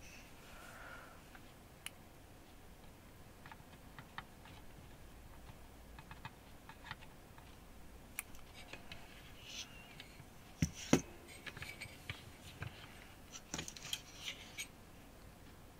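Faint scattered clicks and light taps of a soldering iron and hand tools against a guitar pedal's circuit board and metal enclosure while a replacement chip resistor is soldered on. The clicks get busier in the second half, with two louder knocks about eleven seconds in.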